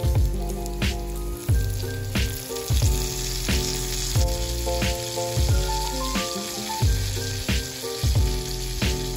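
Chicken breast fillets sizzling steadily as they fry in oil in a nonstick pan, under background music with a steady beat.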